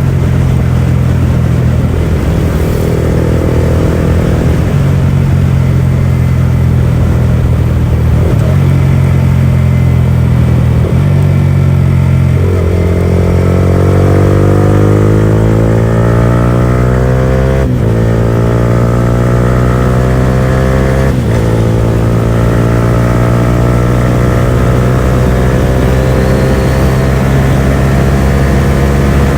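Yamaha R15 V4's single-cylinder engine running loud through an aftermarket exhaust with no dB killer, under way. The note changes in steps at first, then climbs steadily under acceleration, broken twice by short cuts from quickshifter upshifts.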